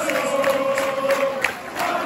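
Football crowd in the stand singing a chant together, holding a long note, with hands clapping through it.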